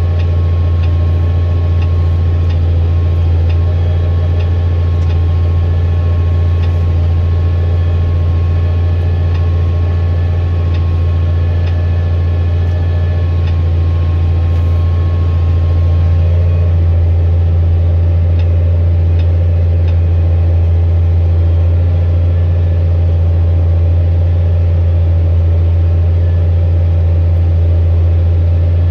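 Tractor engine running steadily under load while it pulls a subsoiler, a deep, even drone with a faint whine above it. It gets slightly louder about halfway through.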